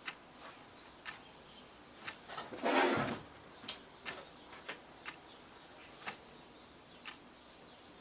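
Light, irregular clicks and knocks of plastic window hardware being handled, about one a second, with a short scraping rustle about two and a half seconds in as the PVC window sash is moved.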